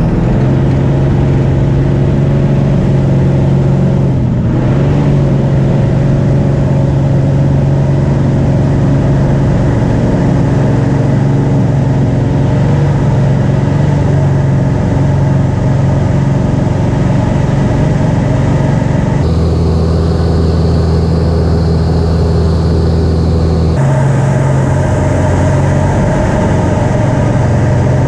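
Light aircraft's piston engine and propeller running steadily at high power, heard from inside the RV-6 cockpit. Past the middle, the tone changes abruptly for a few seconds and then returns.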